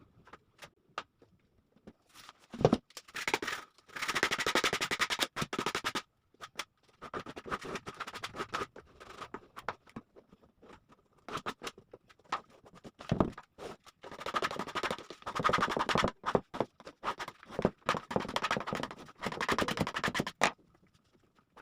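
Rapid back-and-forth scraping strokes in bursts, one about three seconds in and a longer run from about fourteen to twenty seconds in, with scattered knocks between.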